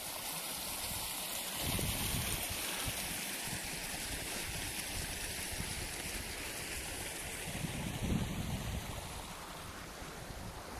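Shallow rocky hill stream running over stones, a steady rushing, with low gusts of wind on the microphone swelling briefly about two seconds and eight seconds in.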